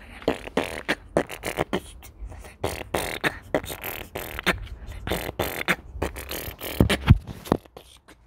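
A child beatboxing: quick mouth pops, clicks and hisses in an uneven rhythm, with a couple of louder low thumps about seven seconds in.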